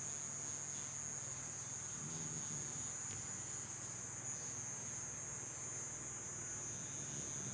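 Dog snoring softly, with one low snore about two seconds in, under a steady high-pitched trill that runs throughout.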